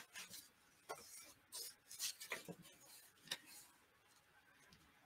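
Faint, brief rustles and taps of paper being handled and laid into the pages of a handmade journal, a few scattered strokes over about three seconds.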